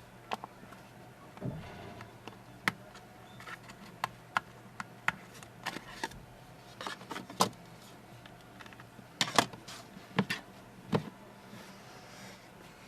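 Irregular light clicks and taps of small hand tools and plastic phone parts being handled on a workbench, some two dozen sharp ticks with a few louder knocks near the middle.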